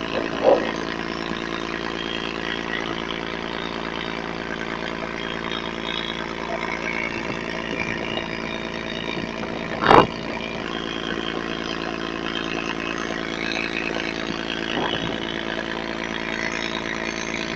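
A boat engine running steadily at an even pitch, over a rush of wind and river water. A single loud knock about ten seconds in.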